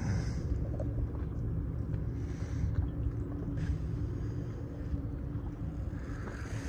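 Kayak paddle strokes splashing every couple of seconds, over a steady low rumble with a droning hum.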